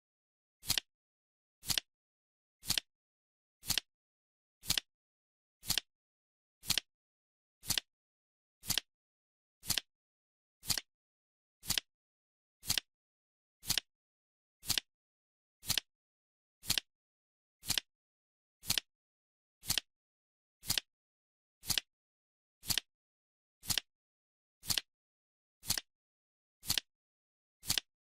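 Clock-tick sound effect of a countdown timer, one short sharp tick every second in an even, steady rhythm, with silence between ticks.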